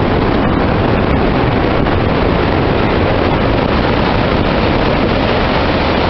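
Strong wind near a tornado: a loud, steady rushing noise with no break.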